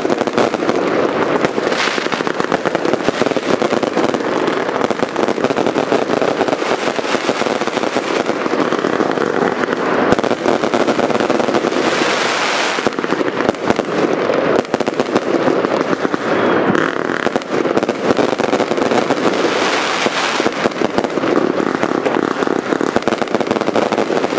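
Aerial fireworks bursting overhead in quick succession: dense, unbroken crackling and popping, with louder bangs every few seconds.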